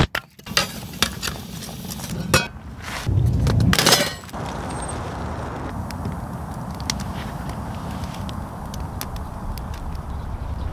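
A run of sharp clicks, clinks and knocks with a heavier low thump about three seconds in. This gives way to the steady hiss of a wood campfire with scattered faint crackles.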